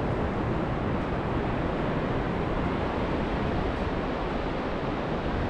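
Surf washing onto a sandy beach, heard as a steady, unbroken rush, with wind rumbling on the microphone.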